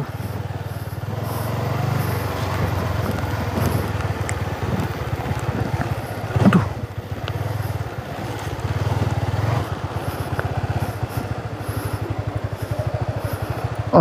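Honda CB150R's single-cylinder engine running at low speed under light throttle as the bike is ridden slowly along a rough dirt path, the engine note rising a little and easing off. There is one brief sharp sound about six and a half seconds in.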